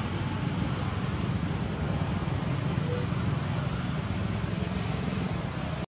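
Steady background noise: an even low rumble with a thin hiss above it, and no distinct event.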